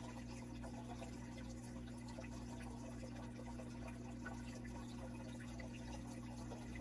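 Aquarium water trickling and dripping over a steady low hum, with faint scattered ticks.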